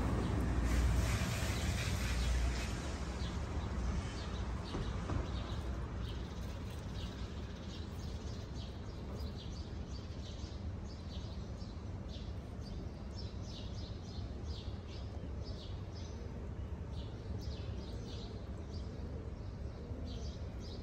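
Small birds chirping in quick, short notes over a steady low outdoor rumble; the rumble is louder for the first couple of seconds, and the chirps grow frequent from about five seconds in.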